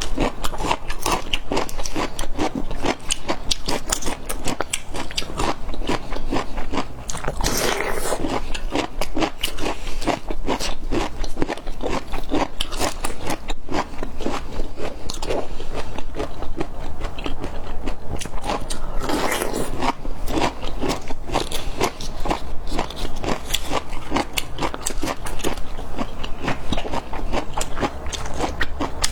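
Close-miked crunching and chewing of bamboo shoot, a steady run of quick, crisp crackles and crunches.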